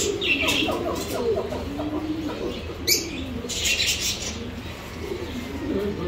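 Many pigeons cooing in a steady wavering chorus, with small cage birds chirping in bursts over it and a single sharp click about halfway through.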